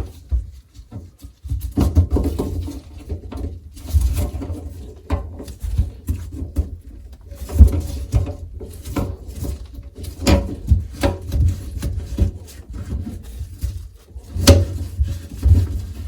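Drain pipe sections and trap under a sink being handled, fitted together and their slip nuts turned by hand: irregular knocks, clicks and scraping.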